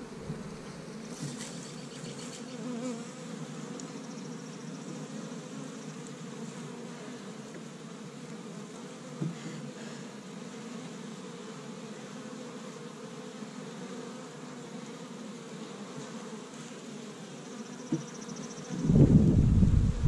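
Steady buzzing of many honey bees flying in and out of a hive entrance. Near the end a much louder low rumble suddenly cuts in.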